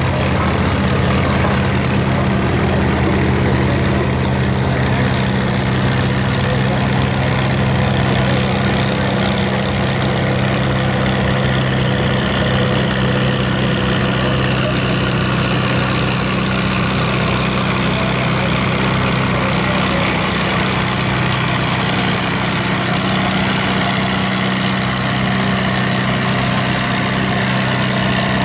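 Vintage farm tractor engine pulling a weight-transfer sled at a slow, steady pace, running evenly under load.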